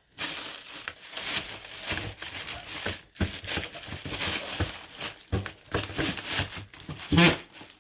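Packaging rustling and crinkling in irregular handling noises as a pair of shoes is handled and shown, with a short pause about three seconds in.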